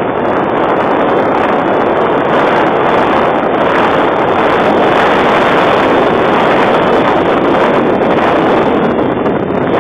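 Strong wind blowing across the microphone: a loud, steady rushing noise with no let-up.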